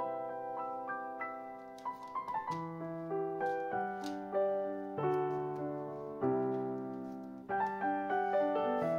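Background piano music: a gentle melody of notes and chords, each struck and left to fade.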